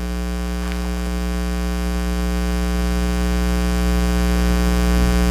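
Steady electrical mains hum with many even overtones, a buzzing drone in the church's sound feed that grows a little louder through the second half.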